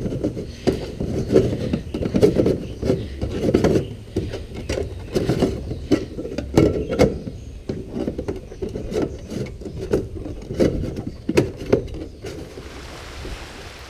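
The round twist-on plastic storage hatch lid of a Caiaker Penguin fishing kayak being turned and worked, its plastic rim scraping and knocking in an uneven run of short rubs and clicks. About twelve seconds in this stops and a steady faint hiss takes over.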